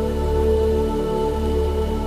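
Ambient relaxation music of steady, held, overlapping tones over a deep low drone, under a faint even hiss.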